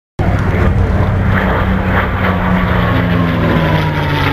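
P-51 Mustang's Packard-built Merlin V-12 engine running as the fighter flies past, a steady propeller drone whose pitch sags slowly.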